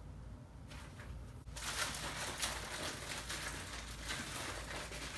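Rustling of packaging with small clicks and ticks of parts being handled, starting about a second and a half in.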